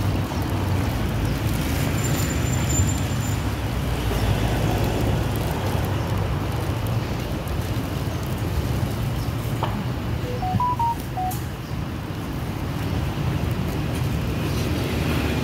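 Street traffic noise, a steady low rumble. About ten seconds in, a quick run of short electronic beeps at different pitches.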